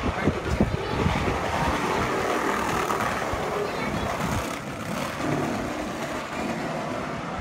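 Steady outdoor street noise with background voices, and a few low bumps in the first second.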